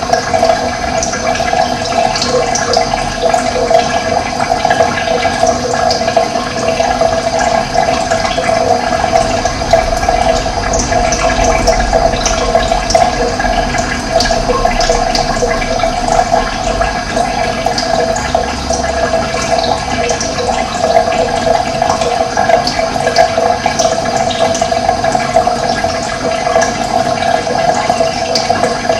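Running water, a steady, even rush with small splashing ticks over it.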